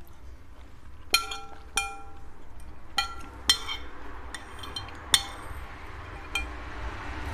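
Metal spoon clinking against a ceramic soup bowl while scooping broth: about eight separate clinks at uneven intervals, each with a brief ring.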